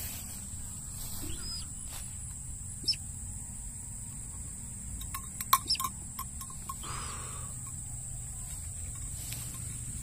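Steady high-pitched insect drone over a low rustle of walking and handling in grass, with a cluster of sharp clicks about five to six seconds in and a few faint short chirps.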